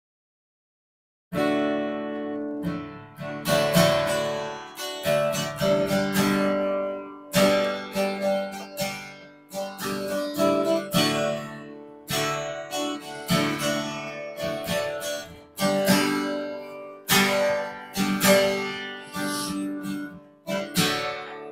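Solo acoustic guitar strumming chords, with notes ringing between the strokes. It starts after about a second of silence.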